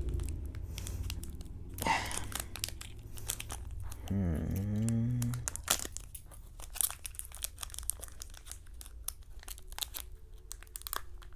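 Foil wrapper of a Pokémon trading card booster pack being torn open and crinkled, with many sharp crackles. A short voiced hum dips and rises about four seconds in.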